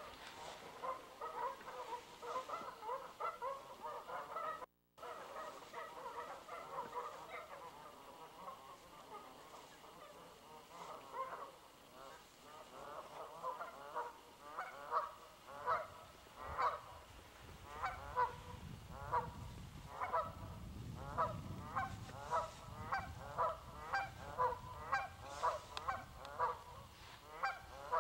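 A flock of Canada geese honking. Many calls overlap at first, then from about halfway there is a steady run of clearer single honks, about two a second. The sound cuts out for a moment about five seconds in.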